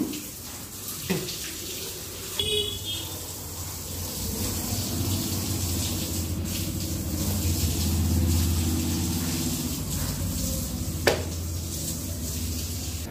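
Water running from a tap and splashing, a steady hiss, with a low droning hum building in the background from a few seconds in and a single sharp click near the end.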